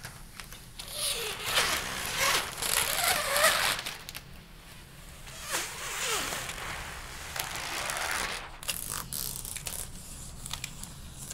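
Clear protective plastic film being peeled off a large TV screen, in two long pulls with quieter stretches between.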